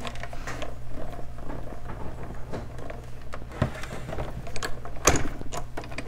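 Hand-cranked Stampin' Cut & Emboss die-cutting machine being cranked, its rollers grinding a plate sandwich through to cut a perforated binder-hole edge die into white cardstock. A few sharp clicks and knocks come in the second half, loudest about five seconds in.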